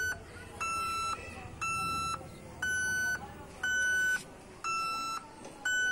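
Dish TV set-top box's signal-finder tone: short beeps of about half a second, roughly one a second, six in all. Their pitch steps a little up and down from beep to beep. The tone grows higher and thinner the better the dish picks up the satellite signal.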